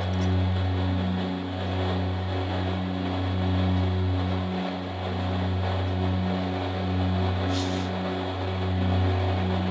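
Vertical machine spindle running, its cutter working in the bore of a lost-wax cast steel crosshead: a steady low hum that swells and eases every couple of seconds, with a brief hiss near the end.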